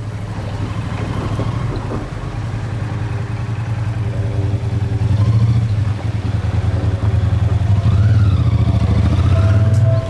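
Cars and a motor scooter driving over a railway level crossing: a steady low rumble of engines and tyres that grows louder, with an engine note rising and falling about eight seconds in.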